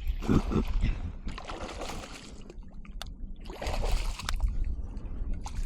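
Water splashing and trickling in two bursts of about a second each, with small knocks and clicks, as a freshly caught trout is handled at the side of a kayak. A low wind rumble runs underneath.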